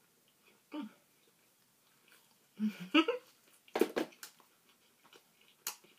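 Close-up eating sounds of a person chewing chips with cheese dip: a brief hummed 'mm' about a second in, a couple more hummed sounds around three seconds in, then sharp mouth smacks or crunches about four seconds in and again near the end.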